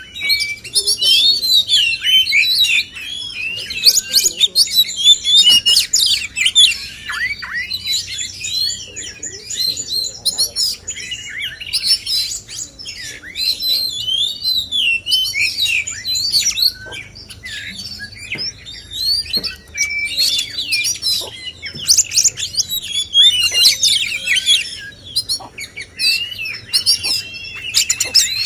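Male oriental magpie-robins (kacer) in full song: a near-continuous run of loud, rapidly varied whistles, chirps and trills, with a couple of brief lulls.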